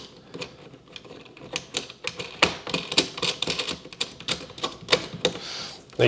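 Plastic backing nut of a USB charging port being threaded on by hand behind a boat console panel: a quick run of irregular small clicks and taps that grows busier after the first second or so.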